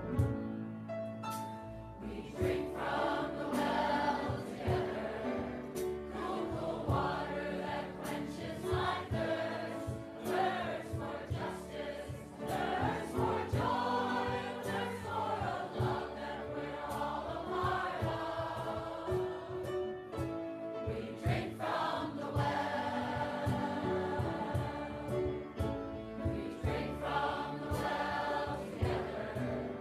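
Choir singing a hymn with instrumental accompaniment, the voices coming in about two seconds in.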